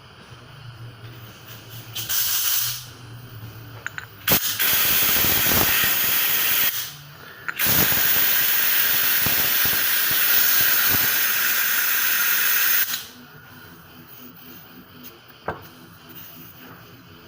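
Aerosol parts cleaner hissing in three sprays onto wheel hub bearings, flushing out solvent: a short burst, then a longer one, then a long steady one of about five seconds. A few small clicks come between them.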